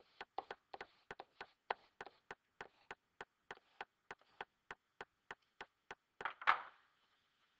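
A steady run of light, sharp taps, about three a second, with one louder thump about six seconds in.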